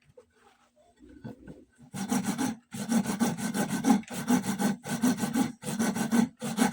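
A hand tool is worked back and forth on PVC pipe, with rasping strokes about every two-thirds of a second. They start about two seconds in, after a nearly quiet start.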